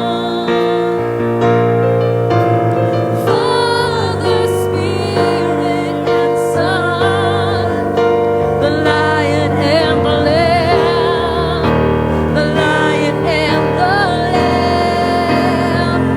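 Gospel-style church music: a singer's voice with wide vibrato over sustained keyboard chords.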